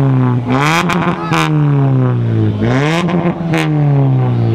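Hyundai sedan's engine being revved in quick blips: the pitch jumps up, then sinks slowly back toward idle, twice, with a third rev starting near the end. A few short sharp crackles come near the top of the revs.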